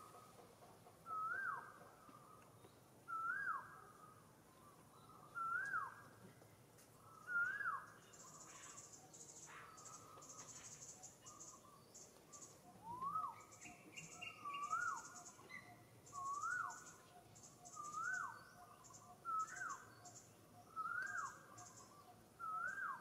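A bird repeating a single whistled call, a note that rises and then drops sharply, about every two seconds, with a pause of several seconds in the middle. A high, pulsing buzz joins about a third of the way in.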